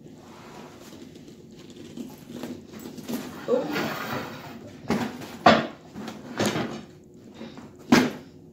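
Rustling and a handful of sharp knocks as a chair and a handbag are moved about at a table: a stretch of rustling, then several knocks in the second half, the loudest near the middle and near the end.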